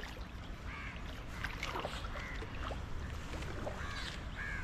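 River water lapping and gurgling against the hull of a small fibreglass boat afloat in a fairly strong current, with scattered small splashes and drips over a steady low rumble.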